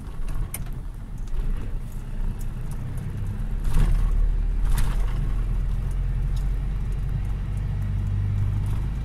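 A 4-tonne truck's diesel engine running at low speed, heard inside the cab as the truck rolls slowly through a parking lot, with two brief knocks about four and five seconds in.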